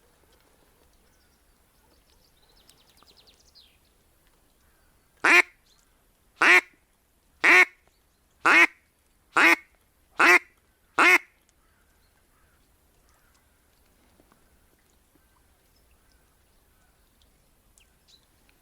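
A hen duck quacking: a series of seven loud quacks that come slightly faster toward the end. This is the hen's call that draws drakes in spring.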